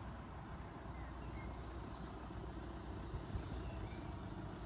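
Steady low rumble of distant road traffic, with a few faint bird chirps.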